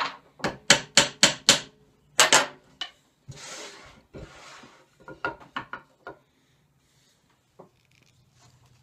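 Claw hammer striking a nail into a wooden dowel: about eight sharp taps over the first three seconds. Then a scraping rustle and a few lighter knocks as the hammer is set down and the dowel is handled.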